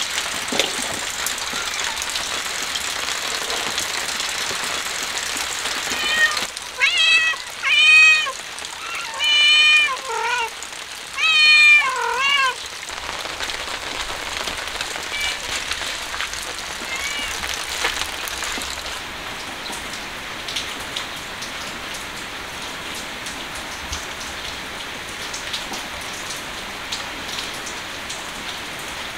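Steady rain falling, with a kitten meowing: a quick run of about six high meows starting about six seconds in, then a couple of fainter ones a few seconds later.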